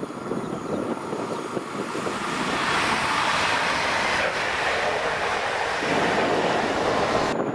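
PESA Elf electric multiple unit passing close at speed: a rising rush of wheels on rail and moving air that swells a couple of seconds in and stays loud as the cars go by, with wind buffeting the microphone.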